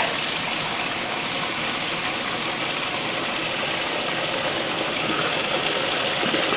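Steady rushing hiss.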